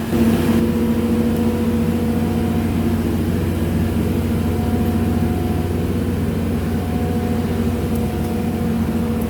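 Skid steer loader's engine running steadily, with a constant hum that gets a little louder just after the start.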